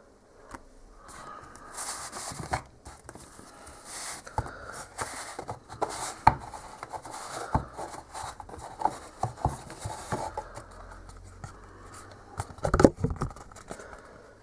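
Cardboard packaging being handled: a printed box sleeve slid off a grey inner box, with rubbing and scraping of card and many small knocks, and a cluster of louder knocks near the end.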